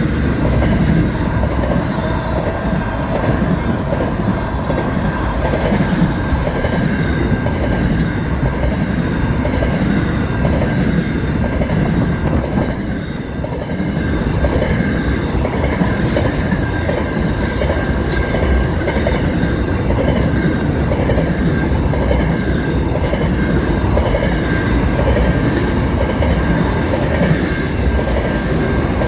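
Freight train of container wagons passing close by: a heavy, steady rumble of wagons and wheels on the rails with a steady high whine over it, dipping briefly about halfway through.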